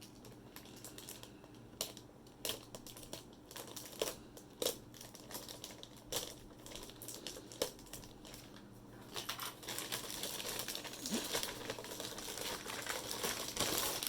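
Packaging being opened by hand: scattered light clicks and knocks of cardboard being handled, then, about nine seconds in, continuous crinkling of plastic wrapping being pulled off the unit.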